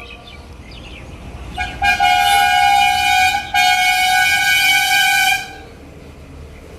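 A horn sounds two long, steady single-pitched blasts, the second following the first almost without a break.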